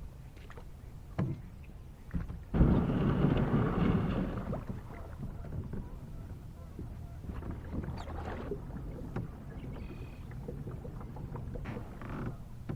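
Kayak setting out on the water: a loud rushing scrape starts suddenly about two and a half seconds in and fades over a couple of seconds, followed by quieter low rumbling noise with scattered light knocks from the hull and paddle.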